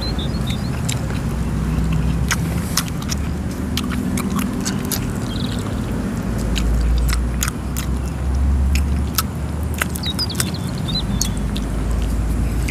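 Close-up chewing and crunching of food, with irregular sharp crunches scattered throughout, over a steady low rumble.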